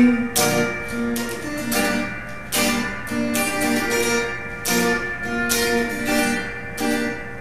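Acoustic guitar strummed without vocals, with chords ringing between the strokes.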